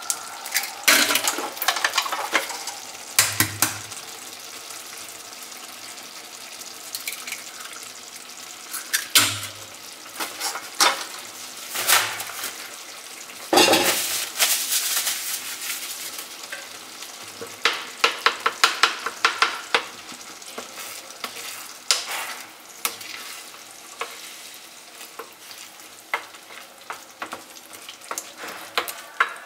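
Menemen of tomatoes, peppers and eggs sizzling in a frying pan on an electric hot plate. Sharp knocks come every few seconds as more eggs are cracked and added, and a wooden spoon starts stirring near the end.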